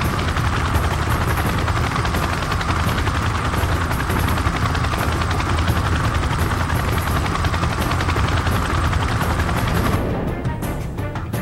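Helicopter rotor chopping steadily with music underneath. About ten seconds in the rotor sound cuts off abruptly and sharp cracks like gunfire follow.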